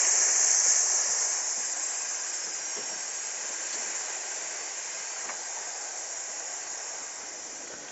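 Long hissing "sss" exhale, the lung sound of the Taoist Six Healing Sounds, loudest at first and slowly fading as the breath runs out.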